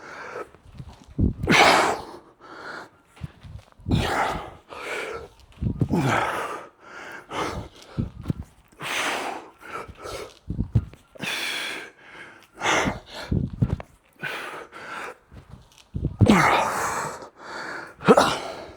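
A man breathing hard during exercise repetitions, with short forceful exhales about once a second and quick gasps between.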